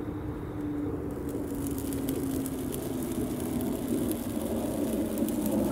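A jet aircraft passing overhead: a steady drone whose pitch slowly falls as it grows louder. From about a second in, kindling crackles as it catches flame.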